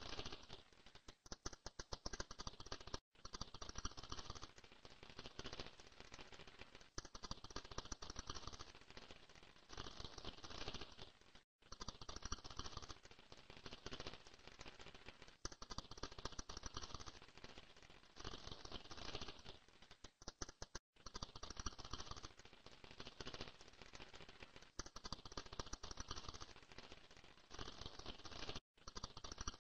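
A rapid, dense clicking and creaking noise that comes in repeated bursts of about one to two seconds, with brief gaps between them.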